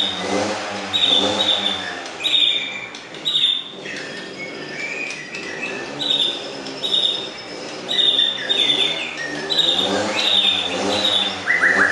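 White-rumped shama singing: short, clear high notes with quick falling tails, repeated about once a second, with a lower warbling sound repeating underneath. Near the end the song switches to a run of lower, stepping-down notes.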